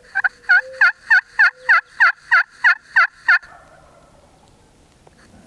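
A hen-turkey yelp series from a hunter's turkey call: about eleven evenly spaced yelps, roughly three a second, each note breaking from a high tone down to a lower one. The series stops abruptly a little over three seconds in.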